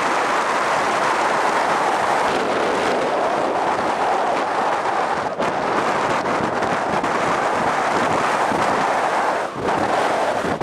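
Steady, loud rush of wind on the microphone, dropping away briefly twice.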